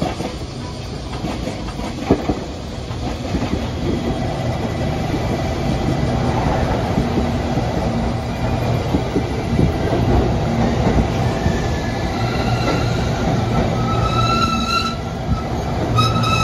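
Train running on the rails, its rumble growing louder over the first few seconds. From about twelve seconds in, high squealing tones from the wheels join in.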